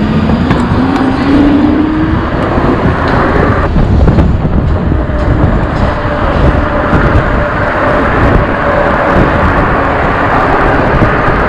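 Heavy wind noise on the microphone and road and traffic noise from a moving electric bike in city traffic, with a faint whine rising in pitch over the first couple of seconds as the bike's hub motor pulls away across an intersection.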